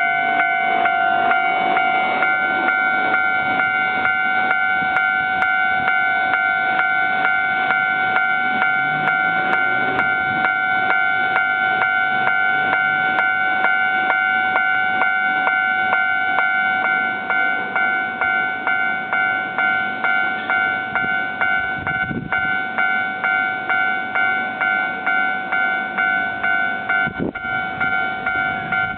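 Japanese level-crossing warning bell ringing in a fast, steady repeating clang with a lingering tone, as a Keio Line train runs past the crossing.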